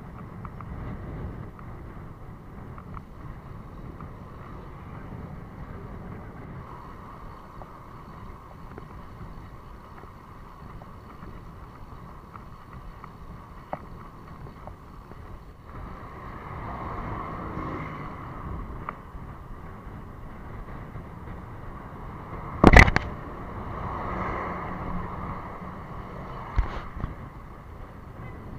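Wind rushing over the microphone of a handlebar-mounted camera on a moving road bike, with steady road noise underneath. A single sharp knock comes about two-thirds of the way through, followed by a few lighter clicks.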